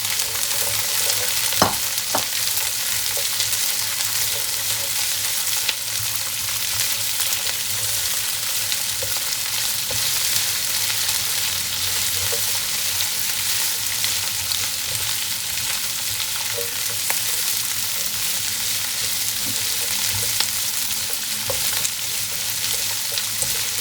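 Green beans, garlic and onion sizzling in plenty of hot cooking oil in a pan as they are stir-fried. There are a few sharp clicks along the way, the loudest about one and a half seconds in.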